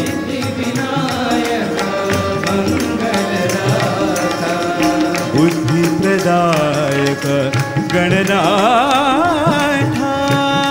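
Devotional Ganesha bhajan music with tabla accompaniment, in a stretch without sung words. A melodic line quavers and ornaments heavily about eight seconds in.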